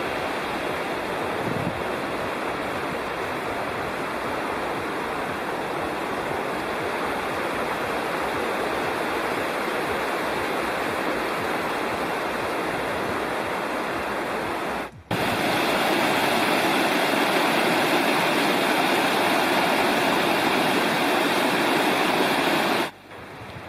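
Big Creek's rushing water: a steady wash of a fast mountain creek. It cuts out briefly about fifteen seconds in and comes back a little louder.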